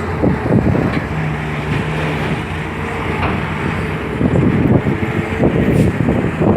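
A large engine running steadily, with irregular knocks and clatter over it.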